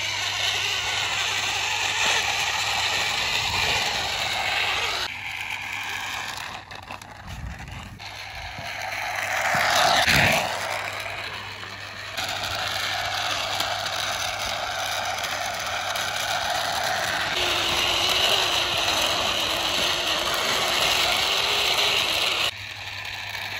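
Plastic toy tank truck pushed by hand along a rough concrete wall, its wheels giving a steady rattling, grinding rolling noise. The noise swells to its loudest about ten seconds in, and its level jumps abruptly a few times.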